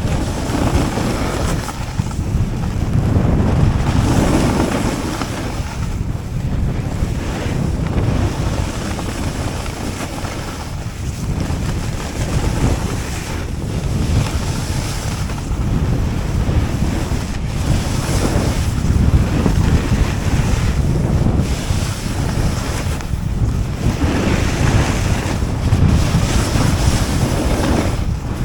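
Snowboard sliding down a snowy ski run, its base and edges scraping over the snow in hissing swells that come and go every few seconds, under heavy wind rush on the microphone.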